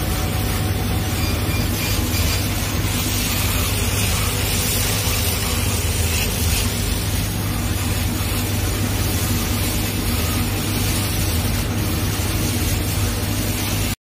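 Laser cutting machine running as it cuts a gold mirror acrylic sheet: a steady, even noise over a strong low hum.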